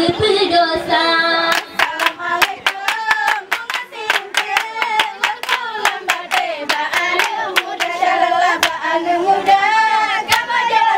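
Female voices singing together in a chant-like song, with many sharp hand claps from the dancers. The claps join about a second and a half in and keep a quick, uneven rhythm.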